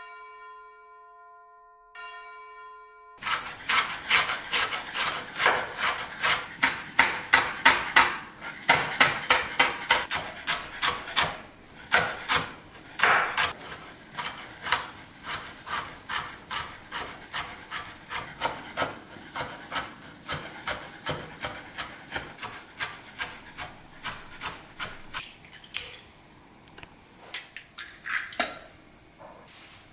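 A short chime of steady tones sounds twice. Then a chef's knife chops vegetables on a bamboo cutting board in quick, regular strikes, about three a second, cutting blanched broccoli. Near the end the chopping thins out to a few separate knocks.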